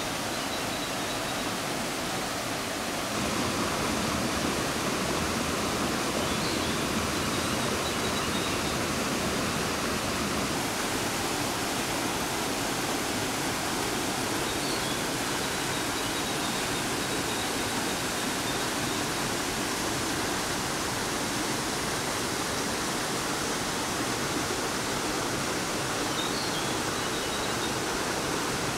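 Waterfall pouring into a rock pool: a steady rush of falling, splashing water that gets a little louder about three seconds in.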